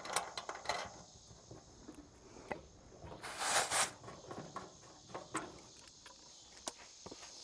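Scattered metallic clicks and taps of brass valve caps and hose fittings being handled at a mini-split condenser's refrigerant service ports, with a short hiss about three seconds in.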